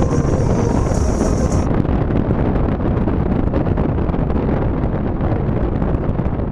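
Loud, steady wind rushing in through a slightly open passenger window of a moving Ford Mustang, mixed with road and engine noise from inside the cabin.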